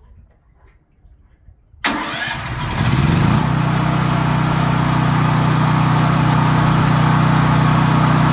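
Generator engine started by its electric starter: after a quiet start, a sudden crank about two seconds in, the pitch rising as it catches, then it settles into steady running.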